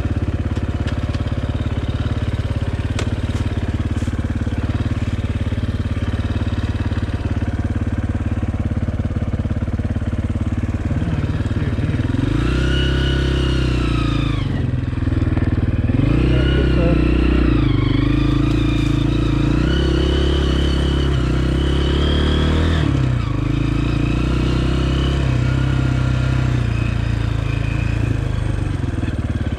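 Honda CRF230F dirt bike's single-cylinder four-stroke engine running under way, holding steady revs at first, then revving up and down over and over from about twelve seconds in, before settling back to steadier running near the end.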